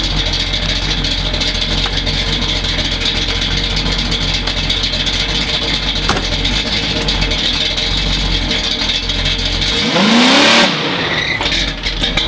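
1968 Pontiac Firebird engine running through Flowmaster mufflers, a steady rumble, then a quick rev that rises and falls about ten seconds in.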